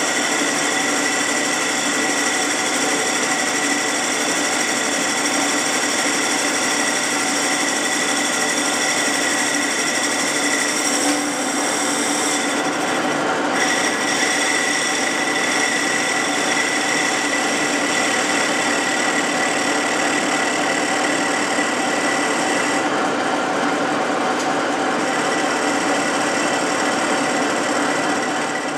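Metal lathe running steadily with its chuck spinning, a constant mechanical hum and whine from the headstock.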